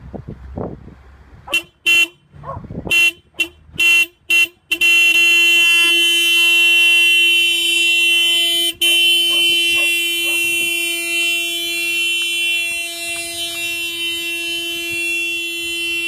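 Car horn of a Toyota SUV sounded by a dog pressing on the steering wheel with its front paws: about six short toots, then one long continuous blast, broken once briefly partway through.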